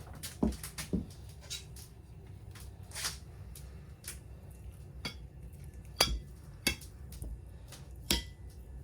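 Kitchen clatter from food preparation: dishes and utensils handled, giving a string of light clinks and knocks, with two louder knocks about six and eight seconds in.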